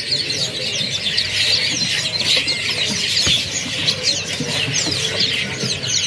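Many caged songbirds chirping and twittering together, a dense chorus of quick, overlapping falling chirps.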